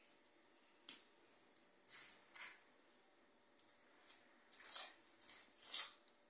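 Dry papery onion skin being peeled with a small knife, crackling and tearing in a series of short scratchy bursts that come closer together near the end.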